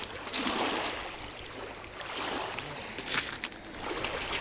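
Water splashing and lapping in repeated swells, one every second or so, with a few sharp clicks about three seconds in.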